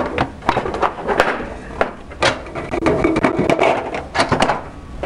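Tapco PRO siding brake at work bending aluminum trim coil: a string of sharp knocks and clacks from the brake's handle and clamp and the sheet striking the rails. About three seconds in comes a denser rattle and scrape as the metal sheet is slid and shifted on the brake.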